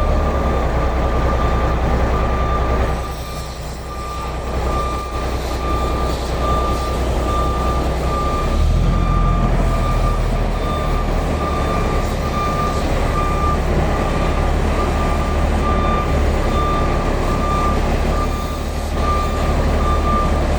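SD32 crawler bulldozer's diesel engine running under load, with its reversing alarm beeping steadily, about twice a second. The engine note drops briefly a few seconds in and changes pitch again near the middle.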